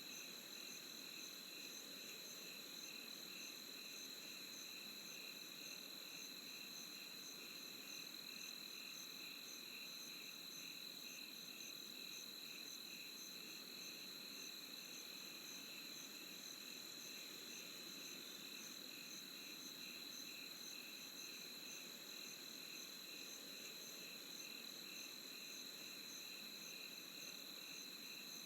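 Night insects such as crickets chirping: one unbroken high trill with rapid, evenly pulsed chirping around it, over a faint low steady rush.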